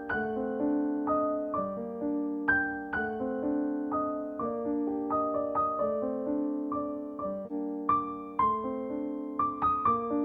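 Background music: a gentle piano or electric-piano melody with notes struck in a steady, unhurried rhythm.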